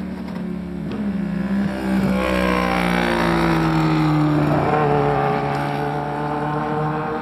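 Sport motorcycle engines running at high revs on a race track as bikes ride past, loudest a couple of seconds in, with the engine note dropping and then climbing again.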